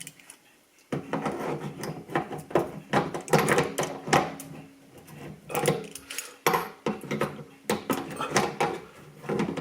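Kitchen sink drain parts being worked loose by hand: a run of irregular scraping, clicking and rattling that starts about a second in.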